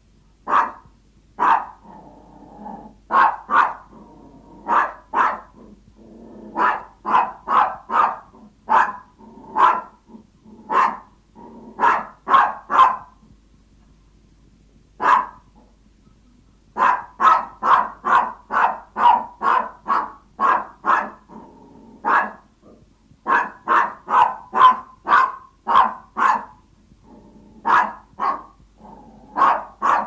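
Yorkshire Toy Terrier barking with short, high yaps in quick runs of about two a second, with a few seconds' break about halfway. The barking is described as a hungry dog begging its owner for food.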